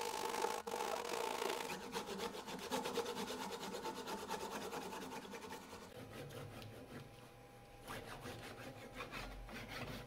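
A wooden disc rubbing on the wooden stump it sits on: a dry scraping with quick, even ticks that grow sparser and fainter through the second half.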